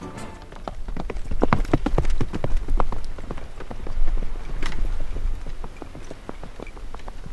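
Horse's hooves clopping on a dirt road as a horse-drawn cart approaches: a run of irregular knocks over a low rumble.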